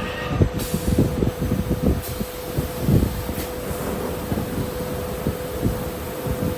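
Aluminium-profile CNC drilling and milling machining centre running: a steady whine over irregular low rumbling and knocking, with a hiss of higher noise coming in about half a second in.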